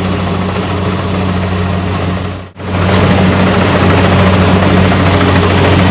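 Heavy engine of rice-harvesting farm machinery running steadily with a low, even hum. It cuts out for an instant about two and a half seconds in and then carries on.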